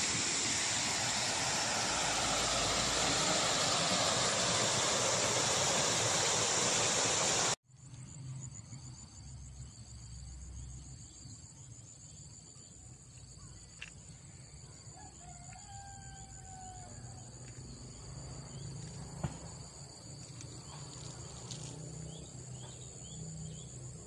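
A loud steady rushing noise, then after a sudden cut a much quieter rural ambience with a steady high insect drone. Midway a rooster crows once, a held call of about a second and a half, and short bird chirps follow near the end.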